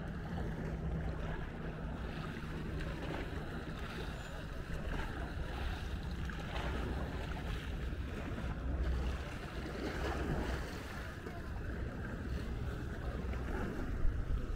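Small lake waves lapping at the shore with wind buffeting the microphone in low rumbles, and a motorboat running in the distance.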